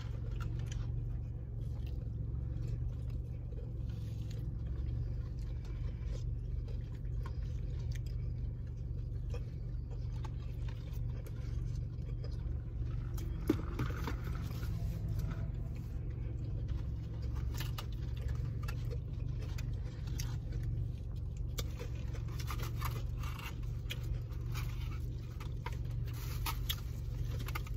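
Steady low hum of a car idling, heard from inside the cabin, with scattered faint clicks and rustles from people eating and one sharper click about halfway through.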